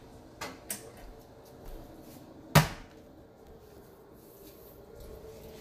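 Dishes and cups knocking against a stainless steel sink as they are washed: two light knocks within the first second, then one sharp clatter about two and a half seconds in.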